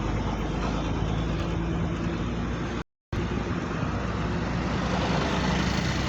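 Steady road-vehicle noise: engines running with the rush of traffic, cutting out completely for a split second about halfway through.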